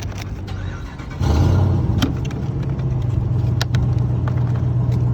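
A vehicle engine running at a steady idle, which gets abruptly louder about a second in and then holds even, with a couple of sharp clicks over it.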